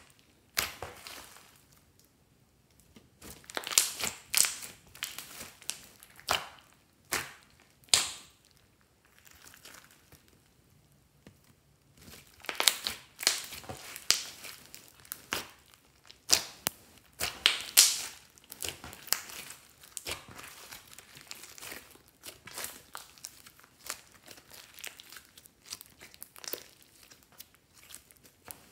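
Hands kneading and squishing a large mass of glossy slime mixed with clay, giving irregular sharp crackles and squishes in clusters with short pauses, busiest from about twelve to twenty seconds in.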